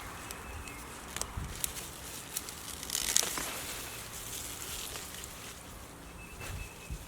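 Rustling and scattered light footfalls and ticks of someone moving through a garden, with a louder rustle about three seconds in.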